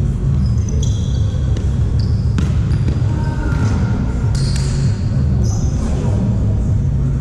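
Indoor volleyball play in a gym: sneakers squeaking briefly on the court several times, and a ball struck sharply about two and four seconds in, over a loud low rumble of the hall.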